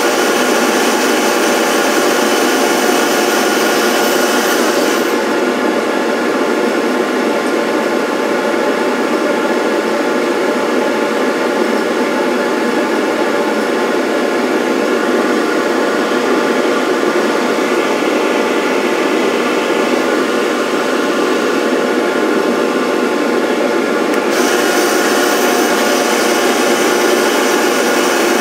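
Electric motor of a lathe or powered cutter running steadily. A high hiss on top of it drops away about five seconds in and comes back near the end.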